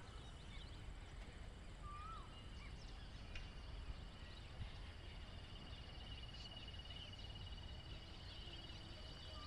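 Outdoor nature ambience: birds giving short chirps and a few brief whistled calls over a steady high insect trill, with a low rumble underneath.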